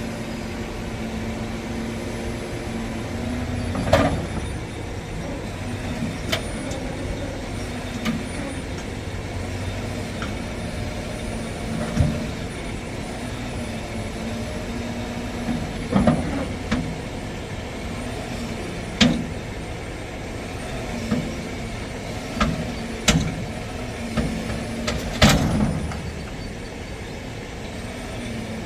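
A large engine idling steadily, with sharp clanks and knocks at irregular intervals.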